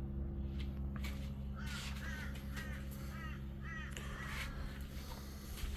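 A crow cawing: a run of about six harsh calls, roughly two a second, over a steady low hum.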